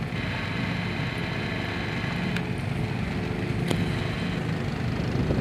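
Steady engine drone, even in level, with two faint clicks in the second half.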